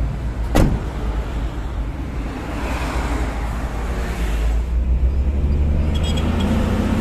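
Hino Ranger FM 260 JD dump truck's diesel engine running as the truck drives, with road and wind noise, and a sharp knock about half a second in. The engine hum grows steadier and stronger in the last two seconds.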